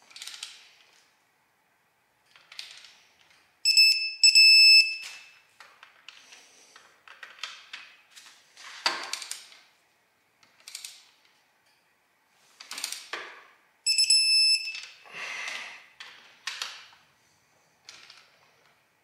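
Digital torque wrench beeping as a head stud nut reaches the set 33 ft-lb, first stage of the torque sequence. It gives two loud pairs of high beeps about ten seconds apart, with clicks and rattles of the wrench being ratcheted and handled in between.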